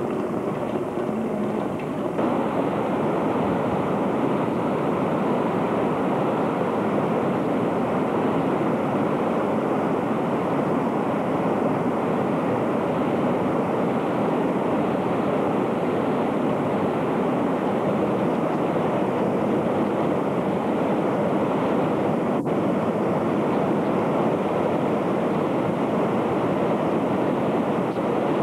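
A stream in flood rushing past in a churning torrent: a loud, steady noise of fast-moving water.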